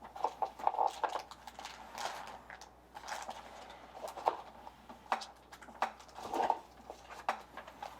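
Trading cards being handled: irregular light rustles, taps and clicks of card stock and plastic.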